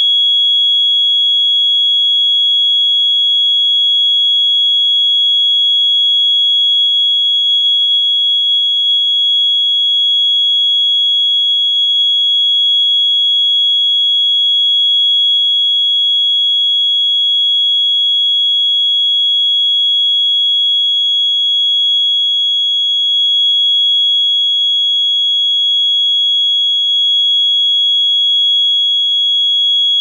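ADE Security Systems Control keyswitch burglar alarm panel's exit-delay buzzer sounding one steady, unbroken high-pitched tone, the signal that it is time to leave the building. The panel's exit delay never times out, so the buzzer does not stop and the system never arms.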